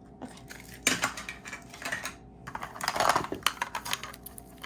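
Small hard-plastic clicks and taps as a hollow plastic toy capsule is handled. They come irregularly, with a sharp pair about a second in and a denser run of clicks a little past the middle.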